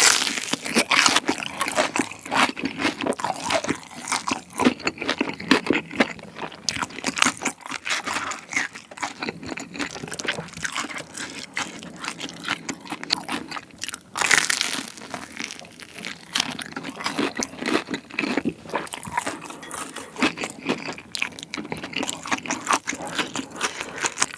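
Close-up crunching and chewing of a crispy, batter-fried Korean corn dog. There is a loud bite at the start and another about 14 seconds in, with steady crackly chewing between them.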